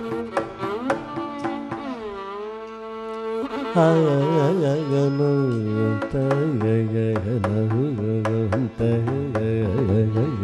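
Carnatic classical performance in ragas Bahudhari and Rathipathipriya, Adi tala. A violin plays a gliding melodic phrase over mridangam strokes. About four seconds in, the male vocalist comes in singing with rapid oscillating ornaments while the drum strokes continue.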